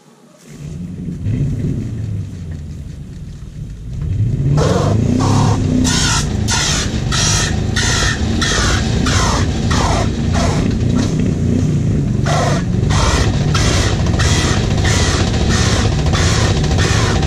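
A low rumble starts, then about four seconds in loud rock music with a steady beat, about two beats a second, comes in.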